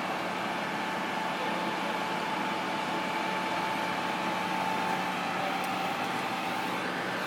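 Burning van giving off a steady rushing noise, with a faint steady whine over it.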